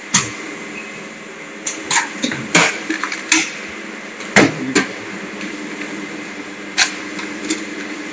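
Chamber vacuum packing machine humming steadily as its cycle ends. A sharp clack comes just after the start, then a series of knocks and clatters as the lid is lifted and a bag is handled and laid on the seal bar, with one more knock near the end.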